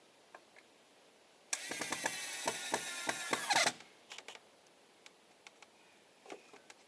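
A power tool runs for about two seconds with a rapid rattle of clicks and stops suddenly, followed by a few light clicks and knocks.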